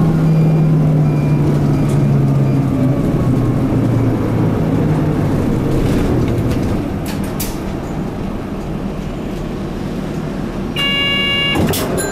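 Mitsubishi Fuso Aero Midi MK bus's 6M61 six-cylinder diesel running under way, heard from inside the passenger cabin with road noise; the engine note sags slightly and gets quieter about halfway through as the bus eases off. Near the end a short electronic chime sounds.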